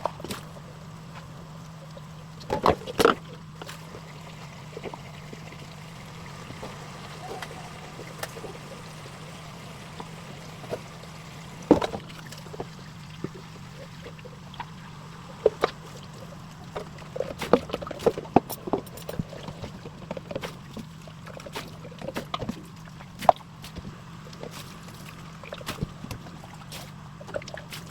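Sausages frying in a pan: scattered pops and crackles of spitting fat over a steady low hum.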